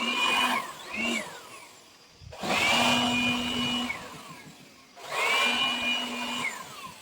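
Small electric power-tool motor run in bursts: a short blip near the start, then two longer runs, each whining up to speed quickly, holding steady for about a second and a half, and winding down as the trigger is released.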